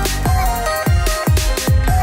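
Electronic background music with a steady beat and repeated deep bass drops, under a held melody.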